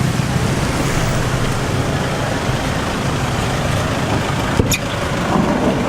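Steady low rumble of a bus engine with road noise, and one short click about three-quarters of the way through.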